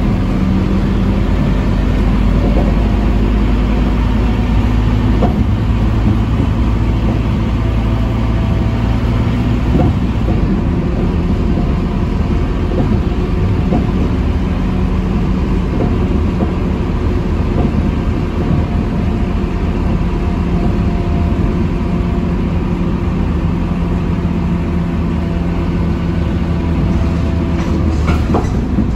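Scania K230UB city bus heard from inside the passenger cabin while driving: its rear-mounted nine-litre five-cylinder diesel running under way, over steady road and tyre noise.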